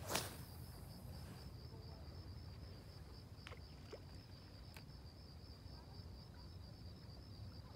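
Fishing rod cast: a sharp swish as the rod whips forward just after the start, with the line hissing out for about a second, followed later by a couple of faint clicks. Crickets chirp steadily throughout.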